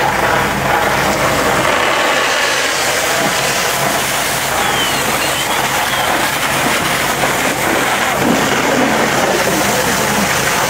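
Fire hose handline nozzle spraying water onto a fire: a loud, steady rushing hiss of the hose stream. A low engine hum underneath fades out about two seconds in.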